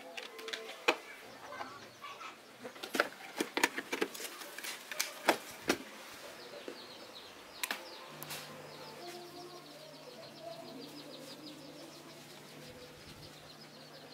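Clicks and knocks of a power adapter plug and speaker cables being handled and plugged in, then a single click about eight seconds in as the speaker's power button is pressed, after which a low steady hum starts. Birds chirp faintly in the background.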